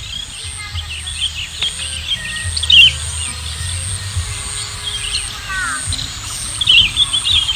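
Small birds chirping in quick, short calls, in clusters about three seconds in and again near the end, over a low steady rumble.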